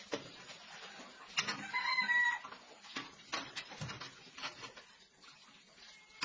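A rooster crowing once, starting about a second and a half in, among scattered knocks and clicks.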